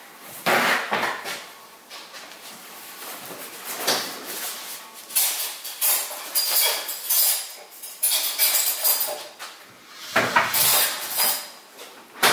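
Paper napkin rustling as it is unfolded, among irregular clatters and knocks of handling at a dining table set with plates and cutlery.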